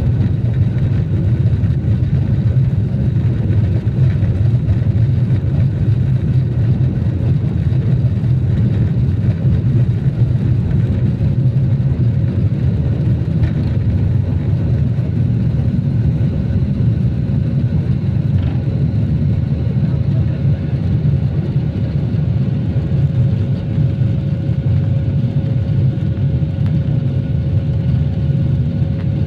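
Steady low rumble of an Airbus airliner's jet engines and airflow heard from inside the passenger cabin, with thin steady whine tones above the rumble.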